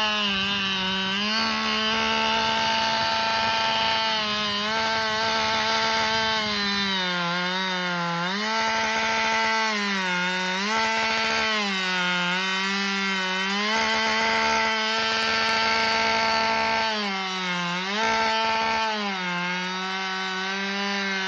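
Chainsaw running at full throttle making the back cut through a dead tree trunk after the felling notch. Its steady high engine note dips in pitch every second or two as the chain bogs in the wood, then picks back up.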